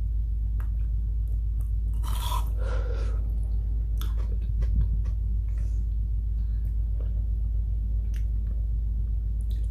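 Mouth sounds of eating a block of frozen yogurt: chewing and sucking, with scattered small clicks and two short hissy sounds about two and three seconds in, over a steady low hum.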